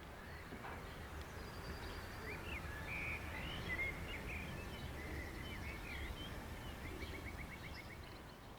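Small birds chirping and twittering, with a quick run of even notes near the end, over a steady low rumble of outdoor ambience.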